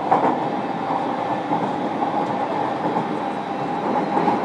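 JR Kyushu 305 series electric train heard from inside a motor car while running between stations: a steady rumble of wheels on rail with a faint motor hum and a few light clicks.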